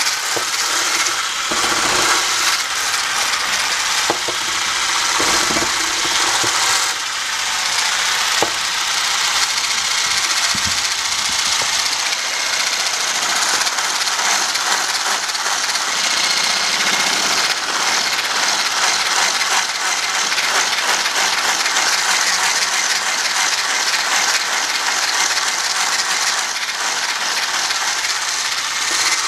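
Electric hand mixer whipping cream in a tall plastic beaker: the beaters whir steadily and rattle against the beaker, with a few knocks in the first several seconds. The cream is nearly whipped stiff.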